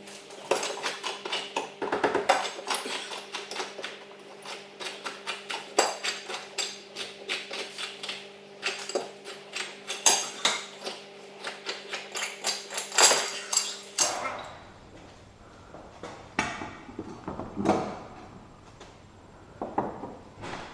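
Metal tools and suspension parts clinking and clanking as a car's lower control arm is worked on by hand: many quick clicks over a steady low hum for about the first fourteen seconds, then the hum stops and the knocks come fewer and further apart.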